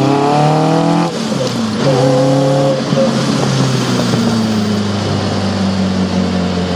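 Caterham R300 sports car's engine heard from inside the car on the move: the revs climb, drop sharply about a second in, rise briefly again, then fall slowly as the car runs off speed.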